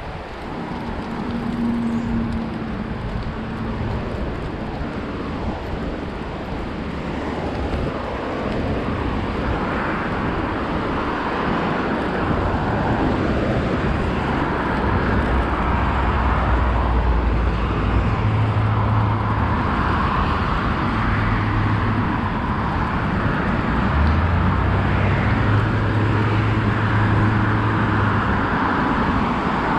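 Road traffic passing, with tyre noise. A low engine drone from a large vehicle comes and goes through the second half.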